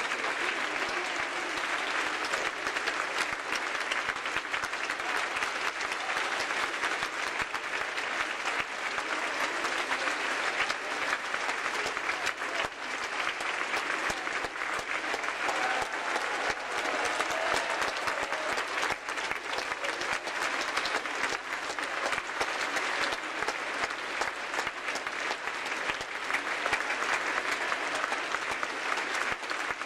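Theatre audience applauding steadily, a dense, even clapping that neither builds nor fades.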